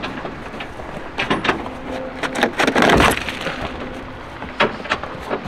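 A crumpled body panel of a crash-damaged car being wrenched loose and handled: a few sharp cracks and clicks, then a loud scraping, rattling crash about three seconds in, followed by a few lighter knocks.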